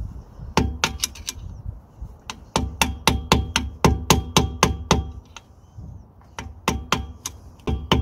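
Hammer tapping a flathead screwdriver against the edge of the Peugeot 206's rear hub nut, a fast run of ringing metal-on-metal strikes about five a second, broken by two short pauses: crimping the nut's edge to lock it in place.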